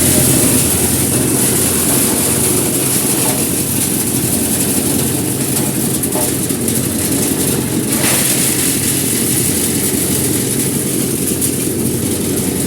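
Multi-purpose livestock-feed and manure grinding machine running steadily, a low engine drone under a loud hiss.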